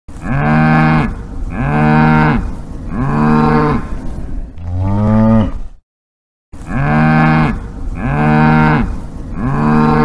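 Cow mooing: a run of long, drawn-out moos about a second each, the fourth lower and bending in pitch. They break off into dead silence for about half a second around six seconds in, and then the same run of moos starts again, as if the recording loops.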